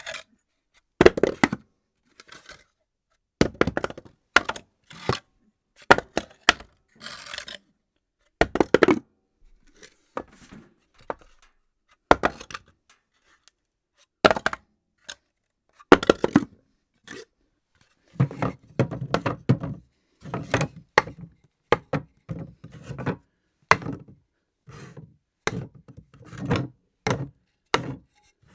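Objects dropped one after another onto a floor, each landing with a sharp thunk or clatter and some bouncing a few times, with short silences between drops. From about two-thirds of the way in, the drops come faster and sound heavier.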